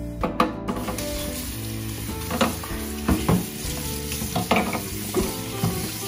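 Kitchen tap running and splashing into a stainless steel sink as the clear plastic coffee-machine water tank is rinsed under it; the water comes on about a second in. Background music plays underneath.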